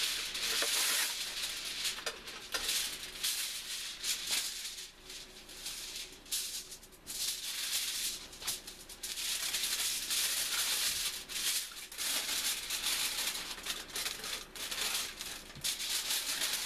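Aluminum foil being pulled off the roll and crinkled as it is folded around a block of cheese: irregular crackling and rustling, quieter for a few seconds in the middle.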